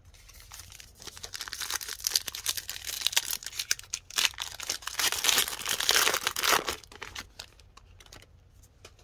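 A trading-card pack's wrapper crinkling and tearing as it is opened by hand, loudest about five to six and a half seconds in, then a few light clicks as it dies away.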